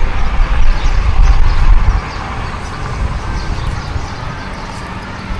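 Wind rumbling on the microphone of a riding cyclist, with outdoor road noise. The rumble drops off suddenly about two seconds in, leaving a quieter steady hiss.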